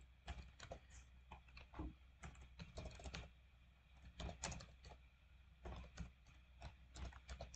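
Faint typing on a computer keyboard: irregular runs of keystroke clicks with short pauses between them.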